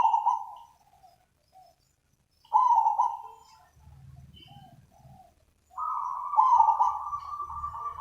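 Zebra dove calling: a burst of soft, quick cooing notes right at the start, another about two and a half seconds in, and a longer rolling run of coos from about six seconds in. Faint chirps of small birds come in between.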